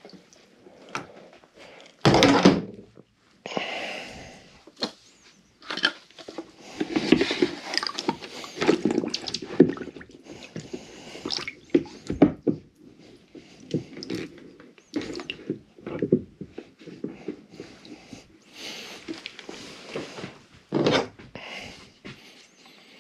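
Water sloshing and splashing in a plastic bucket as hands work a spool of monofilament fishing line soaking in it, getting the line that slipped off back onto the spool; irregular splashes and knocks, the loudest about two seconds in.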